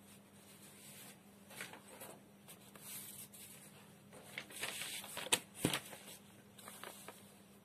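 Sheets of paper rustling and crackling as they are handled and changed over, with a couple of sharp ticks about two-thirds of the way in.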